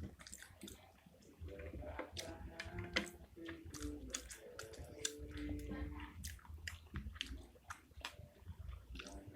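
Close-up wet chewing and mouth sounds of someone eating spicy meatballs, with many quick lip smacks and clicks.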